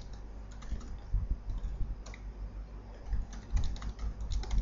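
Typing on a computer keyboard: irregular keystroke clicks, with quicker runs of keys in the second half.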